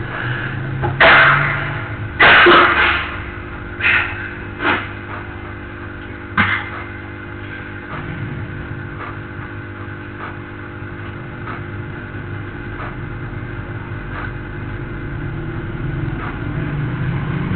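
Steady background hum of the hall recording, broken by five short loud noises in the first seven seconds, the first two the longest, then only the hum.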